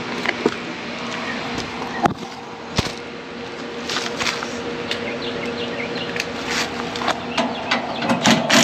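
A steady low hum, with scattered clicks, knocks and clinks of hand tools and parts being handled at an air-conditioning unit during a capacitor replacement. The loudest knocks come near the end.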